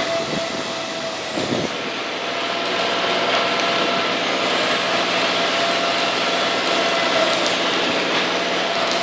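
Construction machinery running steadily, with an engine-like hum that sets in about two seconds in and holds.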